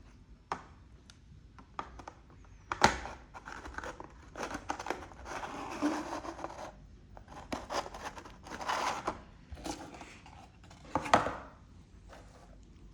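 Packaging being handled during an unboxing: a series of sharp clicks and taps with short bursts of rustling and crinkling. The loudest clicks come about three seconds in and again near eleven seconds.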